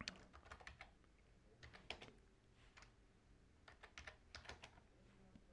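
Faint typing on a computer keyboard: irregular keystrokes in short runs, a few clicks at a time with pauses between.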